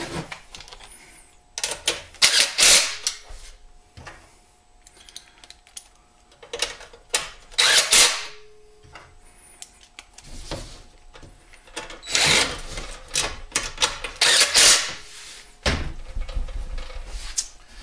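Cordless drill/driver running bolts into a small-engine recoil starter cover, in several short runs with handling sounds between.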